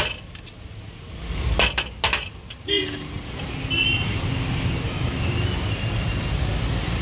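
Metal spatula clanging and scraping against a large iron wok of stir-fried noodles, a few sharp strikes in the first two and a half seconds, over a steady low rumble.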